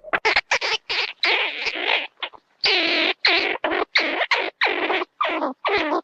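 Cartoon sound effect: a rapid run of short, choppy, squeaky chattering bursts, about four or five a second, each cut off sharply.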